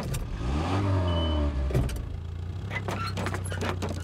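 Car engine revving up and holding for about a second and a half as the car reverses, then dropping away, followed by a knock and a few light clatters.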